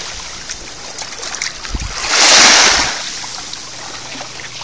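Small waves washing against the rocky shore: a steady wash with one louder surge of water about two seconds in.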